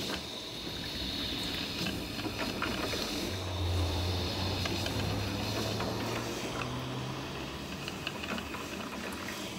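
Oster drip coffee maker brewing: a steady hiss of the water heating and percolating, with scattered light ticks of dripping. A low hum comes in about three seconds in and fades out after about seven seconds.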